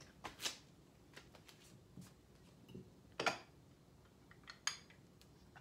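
Faint, scattered clicks and light knocks of kitchen utensils and containers being handled on a counter, the loudest about three seconds in.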